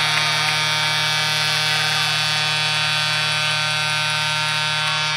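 Arena goal horn sounding one long, steady, buzzing blast after a goal, dying away at the very end.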